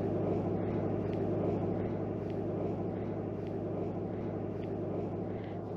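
A steady low motor hum, with a few faint small clicks from handling the soft-plastic bait and jig.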